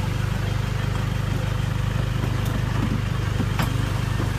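A vehicle engine idling steadily with an even low hum, with a couple of brief sharp clicks over it.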